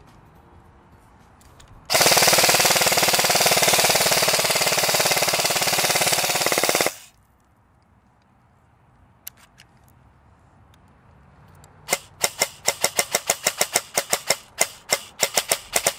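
RWA Battle Arms Development SBR airsoft electric gun (AEG) firing. It lets off one long full-auto burst of about five seconds. After a pause, near the end, it fires a quick string of single shots at about five a second.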